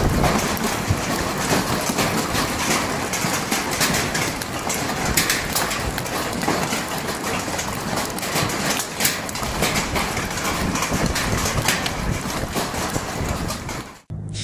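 Hailstorm: hail and heavy rain pelting the ground, a dense steady hiss dotted with many sharp clicks of hailstones striking. It cuts off abruptly near the end.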